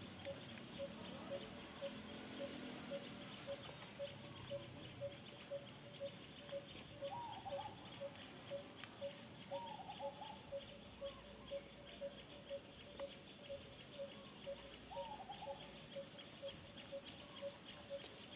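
Faint outdoor animal ambience: a single short note repeats at an even pace, about two to three times a second, over a steady high buzzing hiss. A few short falling chirps come in midway.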